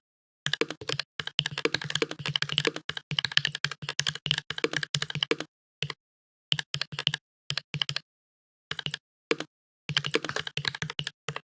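Typing on a computer keyboard: quick runs of key clicks, the longest in the first half, broken by short pauses of dead silence.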